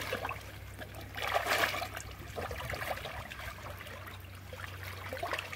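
Faint trickling and light splashing of shallow pond water stirred by people wading and fishing, a little louder about one to two seconds in.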